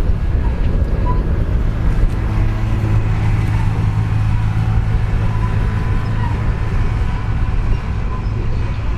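Big John Deere 9RX 830 tractor's diesel engine running steadily, a deep even drone that swells in the middle of the stretch.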